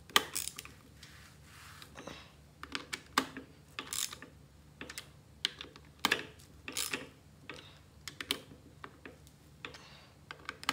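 Irregular small metallic clicks, taps and brief scrapes as the clutch cover bolts are started by hand and turned with a screwdriver on a two-stroke engine case.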